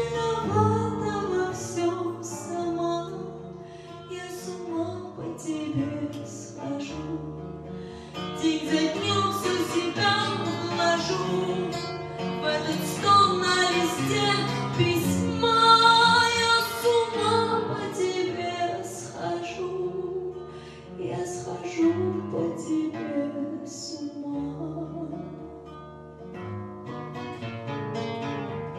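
A woman singing live into a microphone with acoustic guitar accompaniment; the voice grows louder in the middle and softer toward the end.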